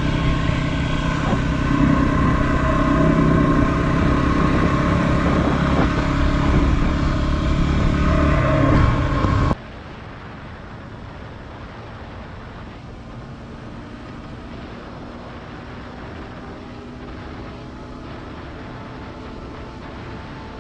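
A Yamaha WR250R's single-cylinder four-stroke engine running steadily while cruising at about 25 mph in fourth gear, with a few slight rises in revs. About halfway through it cuts off abruptly to a much quieter, steady background hum.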